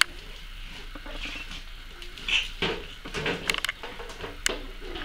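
Pug puppies scuffling and tussling on a tiled floor, their claws pattering and clicking on the tiles. A few sharp clicks come between about three and four and a half seconds in.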